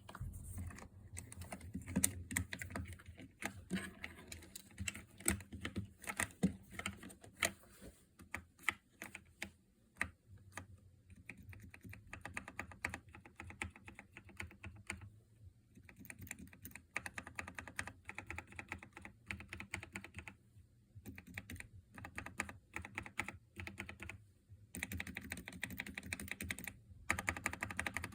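Typing on a Keychron K2 mechanical keyboard with Gateron Yellow linear switches, a steady stream of keystroke clacks. Separate, harder strokes come first, and the typing turns faster and denser about halfway through.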